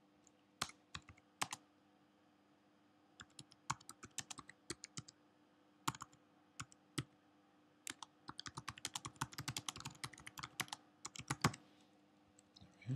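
Typing on a computer keyboard: a few scattered keystrokes, then a quick run of typing about eight seconds in as a line of text is entered.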